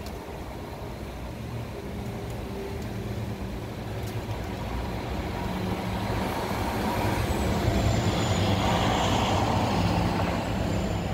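City street traffic, with a large road vehicle's engine running as a steady low hum under road noise. It grows steadily louder and is loudest in the last few seconds.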